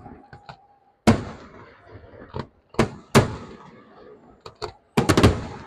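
Fireworks display shells bursting: sharp bangs about a second apart, each with a rolling echo, and a quick cluster of several bangs near the end.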